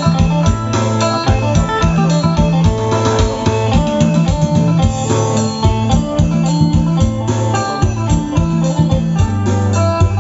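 Music with a plucked-string melody, a steady beat and heavy bass notes, played loud through an outdoor PA system of 18-inch subwoofers and 12- and 10-inch mid-high speaker cabinets during a sound test.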